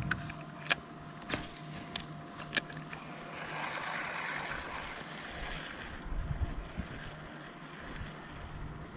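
Small fishing boat on a lake with a steady low hum throughout. Four sharp clicks or knocks fall in the first three seconds, and a soft rush of water or wind comes in the middle.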